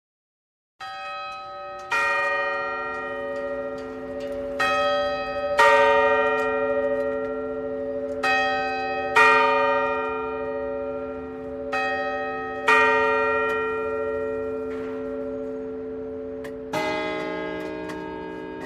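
Clock chime bells striking a slow sequence of notes at different pitches, about nine strikes, mostly in pairs. Each note rings on and overlaps the next.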